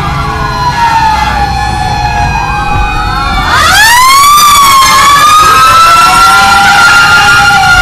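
Several fire truck sirens wailing at once, their rising and falling pitches overlapping. About three and a half seconds in, one siren swoops up and gets much louder as a fire truck passes close. Truck engines hum low beneath the sirens.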